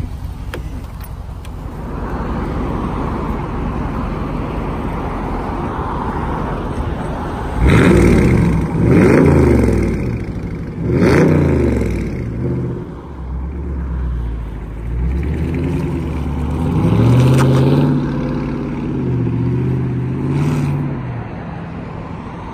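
Muffler-deleted exhaust of a 2019 Dodge Charger: a steady idle rumble, then three sharp revs about eight to eleven seconds in, each falling back. After that the car pulls away, its exhaust note rising as it accelerates.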